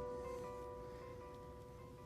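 Background music: a held chord fading away.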